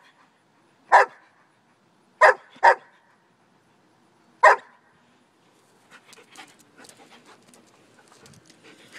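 German shepherd barking: four sharp single barks in the first half, one, then a quick pair, then one more. Only faint scattered noise follows.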